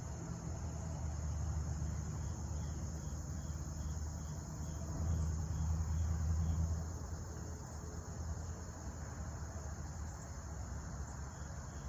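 Crickets chirring steadily and high-pitched, with a fainter regular chirp about three times a second in the middle. Underneath runs a low rumble that swells about five seconds in and eases off about two seconds later.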